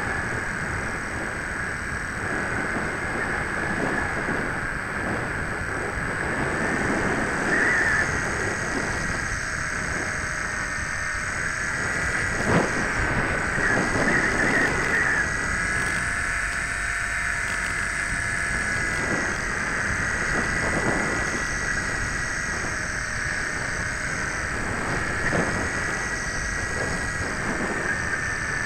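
Airflow buffeting the microphone of a camera riding on a ParkZone Radian electric RC glider in flight, over a steady high whine from its electric motor and propeller. The whine wavers a little in pitch, and a sharp gust thump stands out about twelve seconds in.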